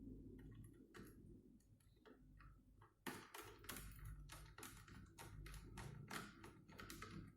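Faint, quick, irregular clicking and tapping of small hard parts being handled, a few at first, then many in a row from about three seconds in.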